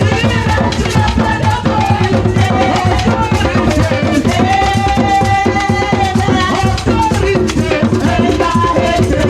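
Upbeat gospel praise music without words: a steady, busy drum and percussion beat under held melody notes.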